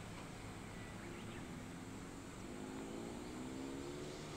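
A motor vehicle's engine, its pitch climbing slowly and steadily from about a second in, over a steady outdoor background noise.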